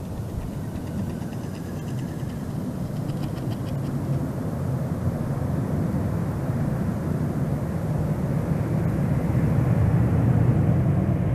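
Jet noise from a B-1B Lancer's four F101 turbofan engines at takeoff power, a deep steady rumble that grows louder as the bomber lifts off and climbs toward the listener.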